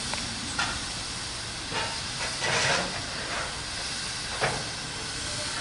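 GWR 2800-class 2-8-0 steam locomotive 2807 standing in steam, hissing steadily, with a louder surge of hiss about halfway through and a few sharp knocks.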